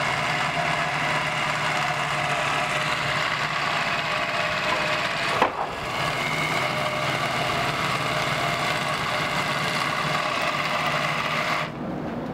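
Cordless electric drill running steadily under load as it turns the winch of a ladder-mounted hoist lifting a heavy air-conditioning unit. A sharp click about halfway through, and the higher part of the whine drops away near the end.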